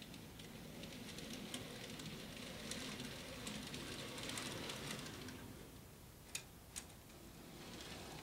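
N scale model freight cars being handled by hand on the track: a faint rustle with many small ticks, then two sharp clicks about six and a half seconds in.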